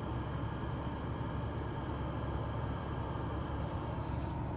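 Steady in-cabin hum and airflow of a Mercedes E320 W211's climate-control blower fan, with a brief hiss about four seconds in.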